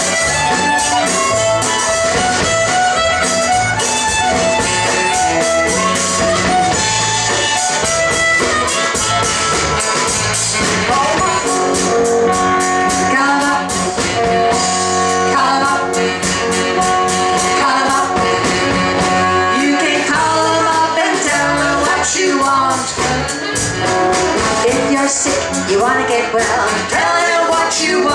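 Live blues-gospel band playing an instrumental break: electric slide guitar, electric bass and drums, with a lead melody line held and sliding over a steady beat.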